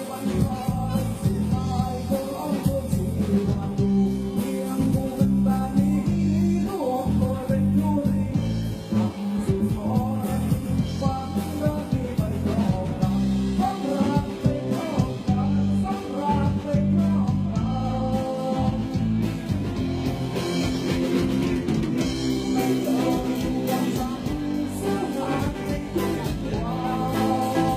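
Live band music: a singer over electric guitar and a steady bass line, recorded live.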